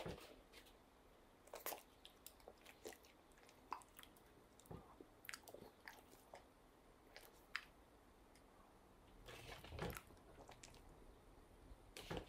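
Near silence: faint scattered clicks and soft rustles, with a longer rustle about nine to ten seconds in.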